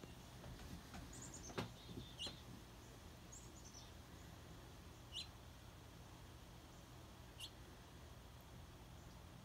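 Faint small-songbird calls: a handful of short, sharp high chips a second or two apart, with quick descending runs of notes about a second and about three seconds in. A single sharp click sounds about a second and a half in.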